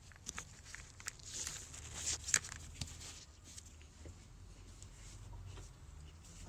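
Scattered light clicks and knocks of tools and parts being handled, with a short rustle about two seconds in, over a low steady hum.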